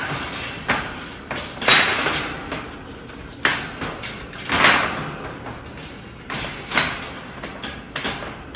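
Metal wire dog pen rattling and clanking as it is handled, with scrapes and sharp knocks at irregular intervals, about a second or so apart.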